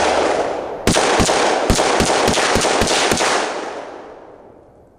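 A rapid string of about nine semi-automatic shots from a Stag Arms AR-15 rifle, about three a second, starting about a second in. Each shot rings out in a long echo, and the echo fades away over the last second or so.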